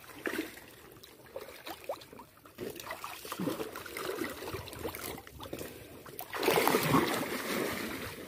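Water splashing and dripping as a gill net is pulled out of the water with fish caught in it, with irregular splashes and a longer, louder rush of splashing about six and a half seconds in.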